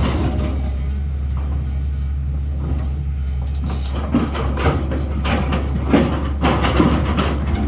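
Sany hydraulic excavator's diesel engine running steadily, with a run of knocks and scrapes from the bucket and arm starting about four seconds in.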